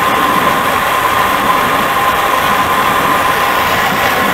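Kalamazoo horizontal metal-cutting bandsaw running and cutting through a round metal bar under coolant: a steady, even cutting noise with a steady high whine through it.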